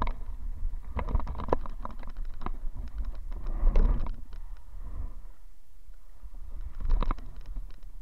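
Inflatable kayak running shallow rapids: water splashing and rushing around the hull, with a series of sharp knocks and taps in the first couple of seconds and again about seven seconds in, and a loud low rumble around four seconds in.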